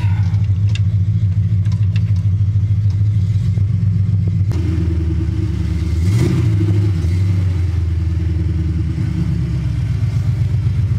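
AMC 304 V8 with throttle-body fuel injection idling at about 1100 rpm, heard from inside the car's cabin, with one quick rev up and back down about six seconds in.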